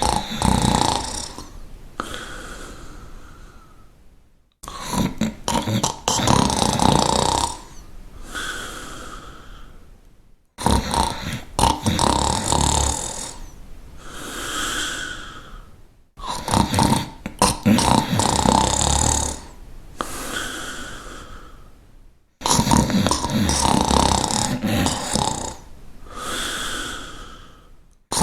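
Snoring in a steady repeating cycle about every six seconds, five times over. Each cycle has a loud rattling snore, then a fading breath that ends in a short whistle.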